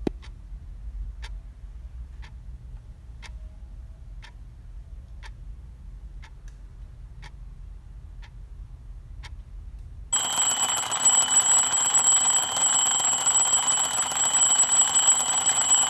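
Clock ticking about once a second over a low hum, then an alarm clock starts ringing loudly about ten seconds in.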